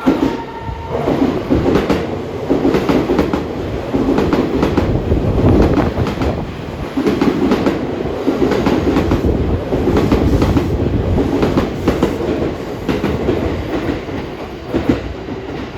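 E261 series electric train passing at speed, its wheels clattering over rail joints in rhythmic groups of beats with a steady rumble underneath. The tail of its music horn fades out about a second in.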